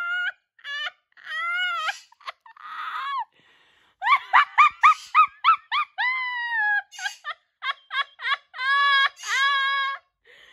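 A woman's high-pitched, squealing laughter: long drawn-out wailing squeals broken by quick runs of giggles, with short pauses for breath.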